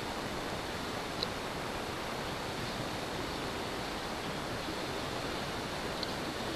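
Steady wind of a snowstorm, an even rushing hiss, with a faint tick about a second in and another near the end.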